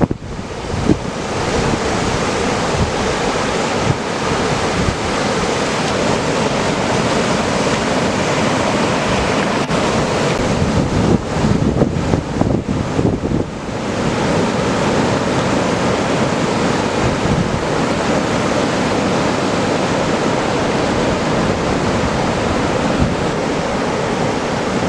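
Ocean surf breaking and washing steadily, with wind buffeting the microphone; the noise eases briefly about halfway through.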